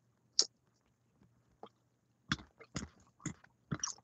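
Close-up mouth sounds from a man: one sharp lip smack about half a second in, then a quick run of wet smacks and clicks like chewing from about two seconds in.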